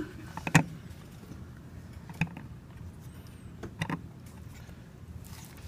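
Seal-carving knife cutting into a stone seal: a low scraping with a few sharp clicks as the blade bites and chips break off.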